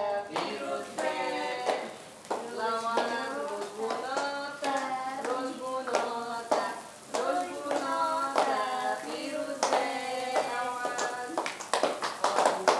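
Voices singing a birthday song, with hand clapping in time. Near the end the singing gives way to a burst of quick clapping.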